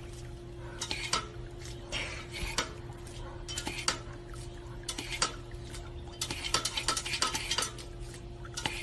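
Irregular clinking and clattering, like dishes or utensils being knocked and stirred, over a steady hum.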